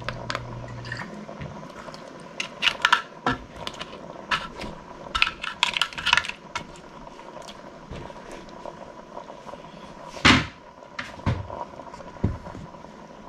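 A plastic spoon stirring crab pieces and vegetables in coconut milk in a stainless steel pot: a run of clicks, scrapes and clacks of shell against metal, with one louder knock near the end. A faint steady high whine runs underneath, and a low hum stops about a second in.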